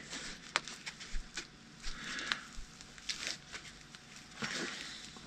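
Faint scattered rustles and small clicks of hands squeezing a foam insulation sleeve hot-glued around a cooler's drain fitting.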